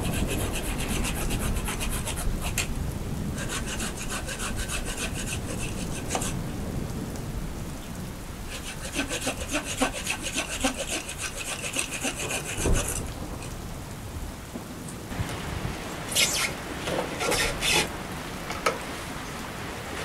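Hand pruning saw cutting through a bonsai's wet root mass and soil, in three spells of quick back-and-forth strokes, with rain falling throughout. This is the root ball being cut down during repotting. A few short sharp sounds come near the end.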